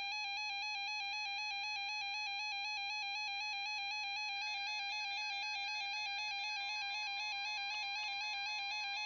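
Electronic alert tone warbling rapidly and evenly between two pitches, a harsh alarm signalling an incoming weather alert, here a tornado watch. Near the end a steady, single-pitch tone comes in faintly underneath.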